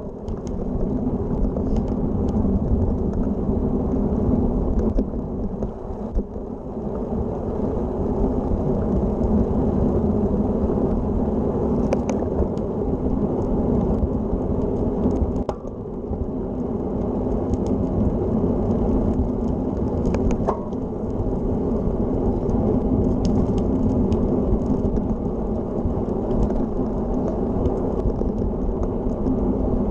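Steady low rumble of wind buffeting a handlebar-mounted camera's microphone, mixed with a road bike's tyres rolling on an asphalt path. It eases briefly about five seconds in and again about halfway through.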